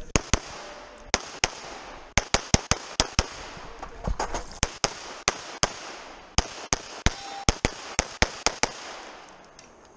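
Semi-automatic pistol firing a rapid competition string: about thirty sharp shots, many in quick pairs, broken by short pauses. The shots stop about a second before the end.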